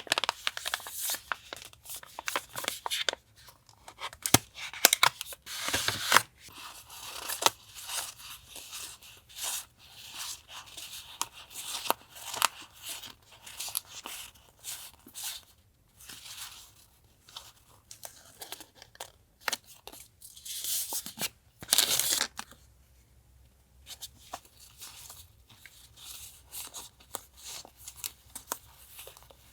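Sticker packs and paper in plastic sleeves being handled and opened: irregular rustling, crinkling and tearing, with a louder burst about two-thirds of the way in, then softer handling.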